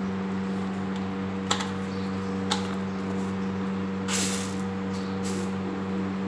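Wheat grains rustling and clicking in a steel plate as they are sorted by hand: two sharp clicks about one and a half and two and a half seconds in, then a short rustle about four seconds in and another about a second later, over a steady low hum.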